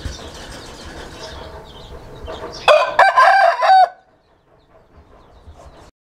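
Aseel rooster crowing once: a short, loud crow of about a second, starting near the middle, after a stretch of low background noise.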